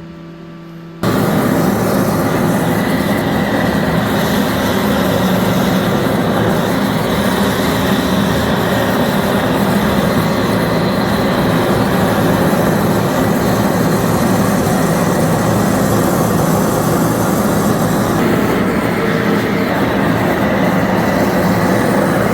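Gas torch flame burning with a loud, steady rush, starting abruptly about a second in. It is preheating a 4130 chrome-moly steel part so that it does not cool quickly and crack.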